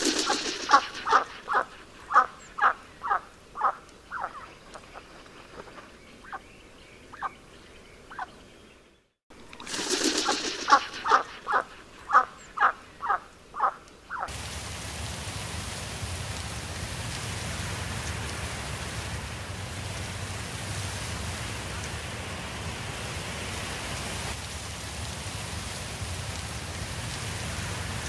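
White domestic ducks quacking: a fast run of short, evenly spaced quacks, a few scattered fainter ones, a brief gap, then a second run. About halfway through the quacking stops and a steady rushing noise of wind over a grass field takes over.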